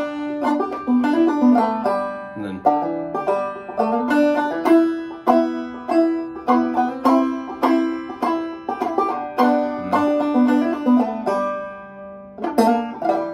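Gold Tone five-string banjo played clawhammer style: a steady rhythm of struck single notes and brushed strums. About eleven seconds in, a note is left to ring and fade, and the playing picks up again near the end.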